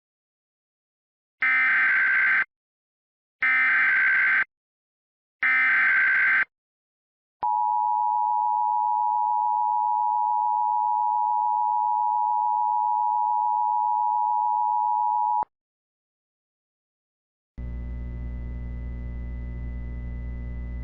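US Emergency Alert System signal: three one-second bursts of SAME header data squawks two seconds apart, then the two-tone EAS attention signal held steady for about eight seconds. Near the end a steady low hum comes in.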